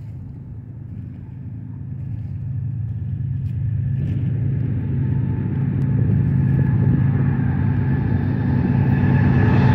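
Lead GE diesel locomotives of a BNSF intermodal freight train approaching, a low engine rumble growing steadily louder as they draw near.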